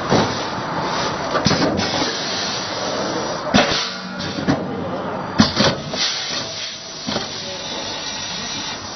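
Vertical packaging machine running with a steady mechanical noise and hiss. It is broken by several sharp clacks at uneven intervals as its pneumatic cylinders stroke and vent air.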